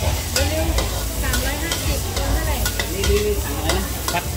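Food frying in a wok, with a metal spatula striking and scraping the pan several times over a steady sizzle and a steady low rumble.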